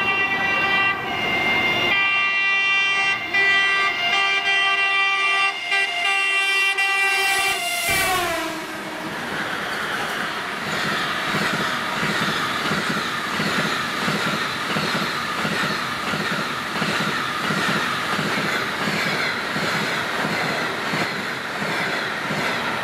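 Electric locomotive horn sounding a long multi-note chord for about eight seconds, its pitch dropping as the locomotive passes. Then a train of double-deck passenger coaches rolls past, the wheels clattering rhythmically.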